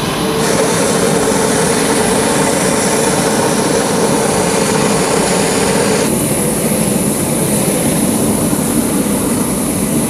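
Jet engines of a C-5M Super Galaxy transport aircraft running, a loud steady noise with a low hum, its character changing abruptly about half a second in and again about six seconds in.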